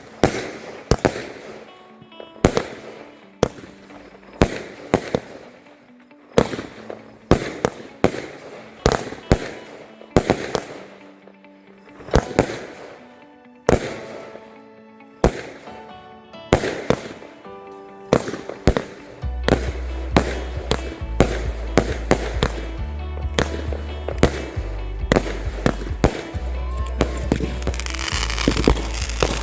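Background music with a steady bass line coming in about two-thirds of the way through, mixed with repeated sharp bangs of exploding consumer fireworks and a burst of crackling near the end.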